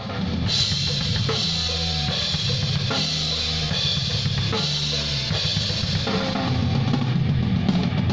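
A metal band's song played loud: a drum kit with bass drum and snare keeping a steady beat under a moving bass-guitar line.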